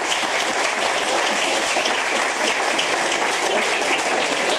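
An audience applauding: steady, dense clapping.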